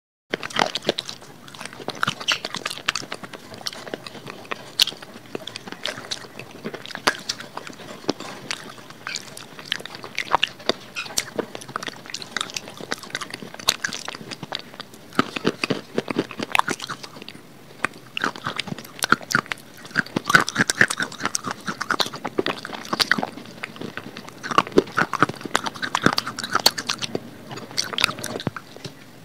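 Close-miked crunching and chewing of dried clay: bites of grey clay diya pieces breaking into a dense run of sharp crackles and clicks.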